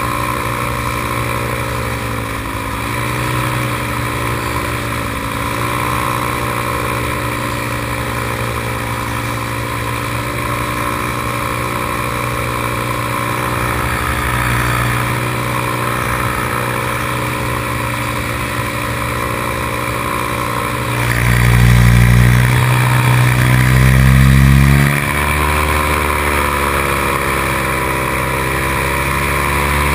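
Paramotor engine and propeller running steadily in flight, heard from the pilot's harness, its pitch wavering slightly. About two-thirds of the way through it grows louder and deeper for a few seconds, then drops back suddenly.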